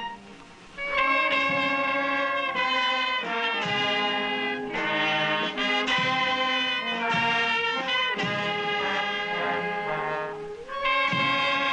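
A wind band of clarinets, saxophones and a sousaphone playing a melody. There are brief breaks between phrases just after the start and again near the end.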